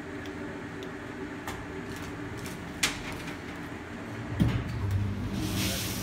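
Maidaid Halcyon D1000 pass-through dishwasher humming steadily, with a sharp click about three seconds in. A little over four seconds in, a motor starts with a thump and a lower steady hum, and a hiss of water spray begins near the end as the wash cycle gets going.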